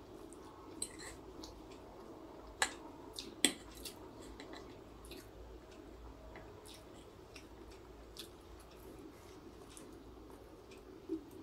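Eating Maggi masala instant noodles with a metal fork: wet chewing and slurping, with scattered clicks of the fork against the plate, the two sharpest about two and a half and three and a half seconds in.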